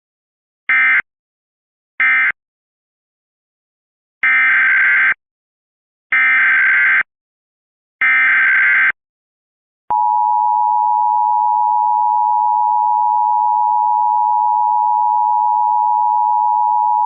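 Emergency Alert System SAME data bursts: two short end-of-message bursts in the first couple of seconds, then three longer header bursts about two seconds apart, marking the end of one alert and the start of the next. About ten seconds in, the EAS two-tone attention signal begins, a loud steady dual tone that carries on through the end.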